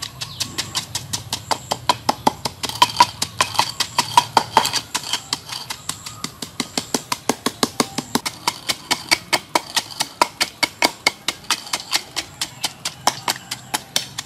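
Wooden pestle pounding chilies in a wooden mortar: a rapid, even run of knocks, about five strokes a second, crushing the chilies into a spicy dipping sauce.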